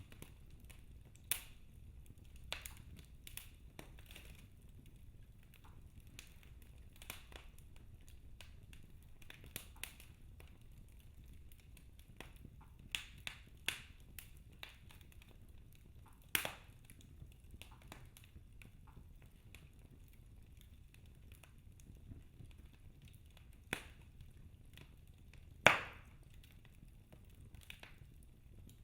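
Wood fire in a fireplace crackling: irregular sharp pops and snaps over a low steady rumble, with the loudest pop near the end.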